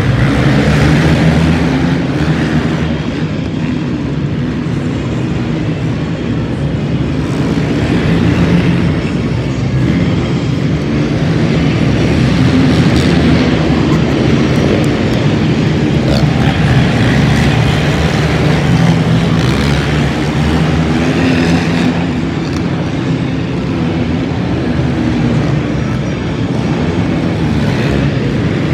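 Engines of racing quad ATVs and monster trucks running together in a loud, steady drone that swells and eases as the quads circle the track.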